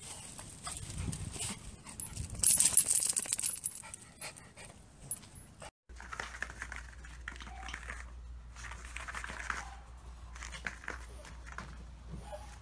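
Small dogs making sounds, loudest between about two and three seconds in. About six seconds in the sound changes abruptly to softer, intermittent sounds from a Maltese moving about on a foam floor mat.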